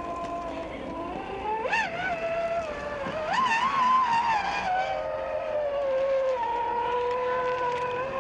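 Element RC Sendero HD rock crawler's electric motor and gear train whining as it climbs onto a boulder. The pitch jumps up sharply and falls back twice, about two and three and a half seconds in, then settles into a steady, lower whine.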